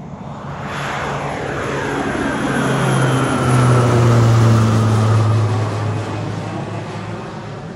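Crop-duster spray plane flying low overhead: its engine and propeller grow loud, peak about four seconds in, then fade as it moves away. The pitch drops as it passes over.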